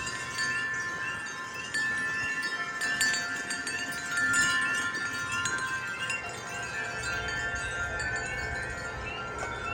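Wind chimes ringing in a gust, several long overlapping tones sounding together. Through them, a spring peeper repeats its short rising peep about twice a second.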